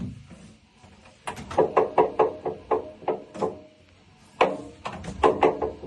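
Samsung washing machine drum knocking as it rotates: two runs of rapid knocks, about four to five a second, each with a brief ringing, the second run starting after a short pause. It is an abnormal noise from the drum, most likely from a part that has come unscrewed.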